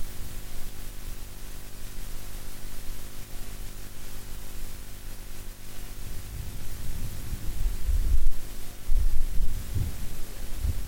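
Steady hiss and low hum of a faulty microphone. From about six seconds in, irregular low rumbling buffets of wind on the microphone come in and grow stronger.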